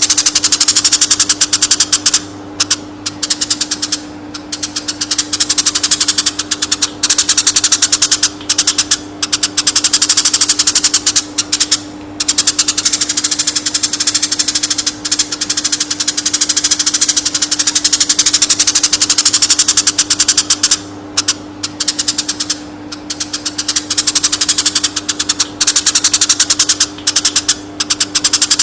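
Eurasian tree sparrows chirping in a fast, dense run of high chirps, broken by short pauses every few seconds, over a steady low hum.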